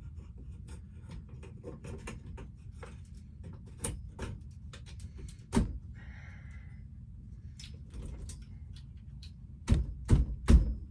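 Scattered clicks and knocks of animatronic parts being handled and fitted while the control box is mounted, with three louder knocks in quick succession near the end, over a steady low hum.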